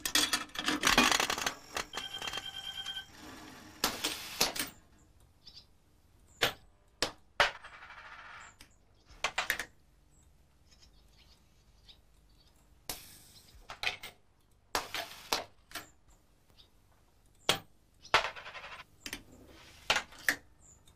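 A coin dropping into a coin-operated novelty machine and moving through its mechanism: a series of sharp clicks and knocks with a few short mechanical rattling runs, and a brief beep about two seconds in. The mechanism is reading which face of the coin is up, head or tail, to give its verdict.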